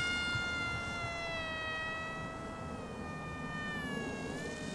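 Whine of the XK A180 F-22 Raptor RC jet's electric motor and propeller in flight. It holds one pitch with many overtones, sliding slowly lower and dipping lowest near the end.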